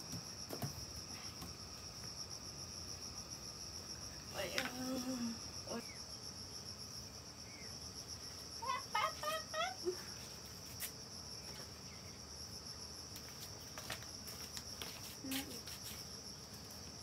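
Steady, high-pitched insect trilling, like a cricket chorus, with a few short voice-like calls about four and nine seconds in.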